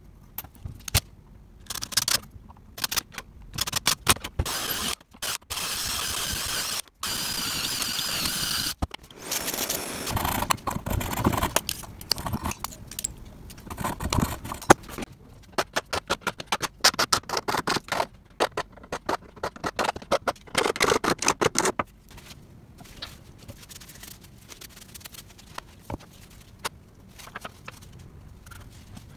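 Hand-working a wooden knife handle: a few seconds of steady whirring noise, then about ten seconds of rapid back-and-forth rasping strokes as a saw blade held in locking pliers cuts out the tang hole in the handle block. Near the end only light handling clicks and taps remain.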